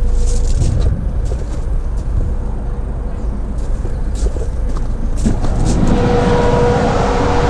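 Van engine idling with the GAH chiller unit running: a steady low hum, with scattered light clicks. About six seconds in, a louder hiss rises, carrying a steady whine.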